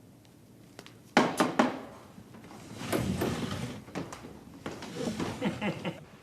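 Three sharp knocks or bangs in quick succession about a second in, then a stretch of busy noise, with voice-like sounds near the end.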